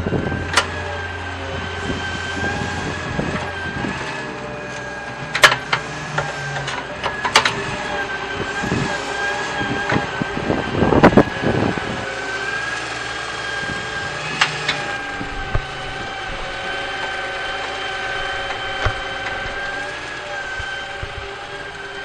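Small electric motor of a toy RC vehicle whining steadily with a slightly wavering pitch, broken by several sharp knocks, the loudest about 5 and 11 seconds in.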